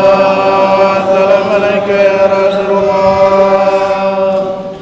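A man's voice chanting in Arabic through the mosque's microphone: one long held note with slight wavering, trailing off near the end.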